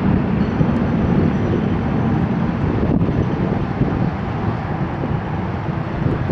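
Steady low rumble of jet aircraft engines, mixed with wind on the microphone.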